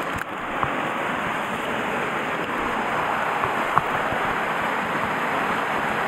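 Mountain stream water rushing steadily over rocks and a small cascade, with a couple of light clicks.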